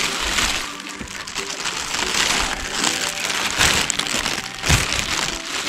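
Thin plastic bag crinkling and rustling in the hands as litter is handled and put into it, in irregular rustles that come and go.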